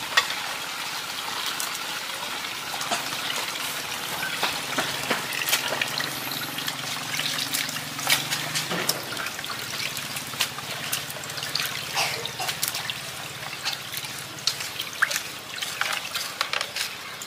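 Water trickling and splashing from a hand pump's spout into a plastic basin, with scattered light taps of a knife on a plastic cutting board.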